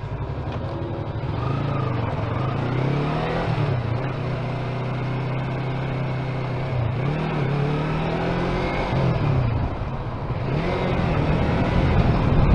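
Motorcycle engine running while riding, its pitch rising and falling several times with throttle and gear changes, and getting louder toward the end.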